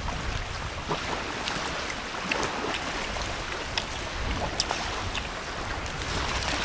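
Steady outdoor rushing noise with a low rumble, broken by a few faint sharp clicks.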